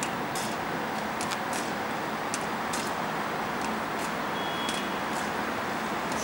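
Berlin U-Bahn train standing at the platform with its doors open, giving off a steady running hum and hiss, with faint sharp clicks now and then.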